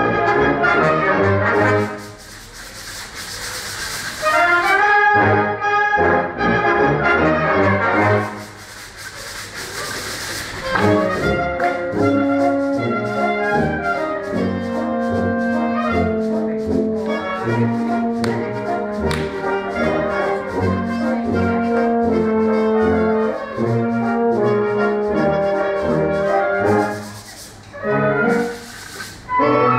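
Brass band playing, with sandpaper blocks of different grades rubbed together as a rhythmic solo instrument. The loud scratchy hiss of the sandpaper stands out in breaks where the band drops back, at about two seconds in, again around eight seconds in, and near the end.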